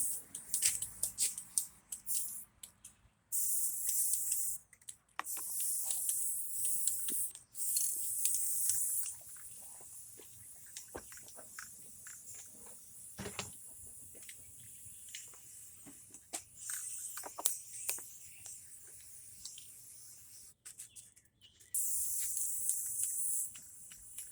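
Aerosol can of Rust-Oleum gloss black spray paint hissing in repeated bursts of one to two seconds as a first coat goes onto a wooden subwoofer box. There are short gaps and light clicks between the bursts, with a longer pause in the middle and a last burst near the end.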